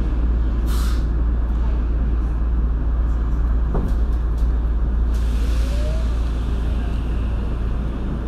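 Running noise inside a Tokyo Metro 02 series subway car: a steady, loud low rumble of the wheels on the rails. There is a short hiss just under a second in and a longer hiss from about five seconds. A rising motor whine starts at about the same time.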